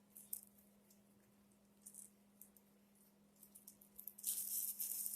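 Faint scratchy clicks of a small tool cleaning hair and lint from the metal parts of an old Singer sewing machine, turning into a steadier scraping rasp about four seconds in, over a low steady hum.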